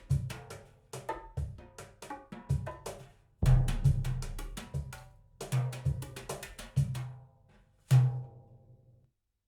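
Recorded percussion music played back over Elfton Vegas II four-way loudspeakers: a quick run of drum hits with deep thuds and sharp wooden clicks. It stops briefly about three seconds in, then ends with a single hit that rings out into silence shortly before the end.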